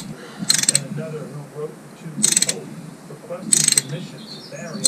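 Socket ratchet clicking in four short bursts of rapid clicks, one on each back-swing, as a bolt is tightened against a nut to jack apart a motorcycle engine's crankcase halves.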